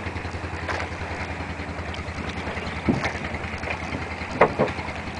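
Boat engine running steadily with a low, even pulse, with a few short louder sounds about three and four and a half seconds in.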